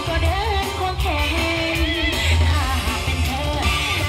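Music with a singing voice over guitar and a strong bass.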